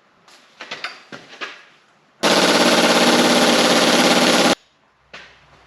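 A few metal clanks, then an impact wrench hammering on the crankshaft pulley bolt of a Honda F20C1 engine for a little over two seconds before stopping abruptly. The bolt does not break loose.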